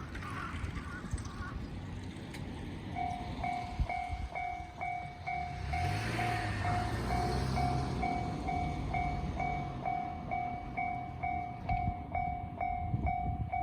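Japanese railway level-crossing warning bell starts about three seconds in and rings steadily, an electronic two-tone ding at about two strikes a second, signalling an approaching train. A vehicle passes with a rising and falling rumble around the middle.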